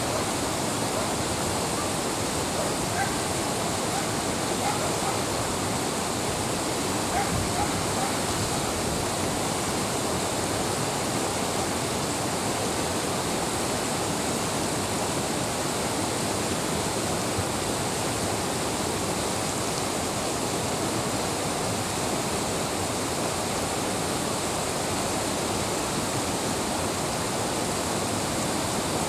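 Steady rushing of a fast-flowing river rapid.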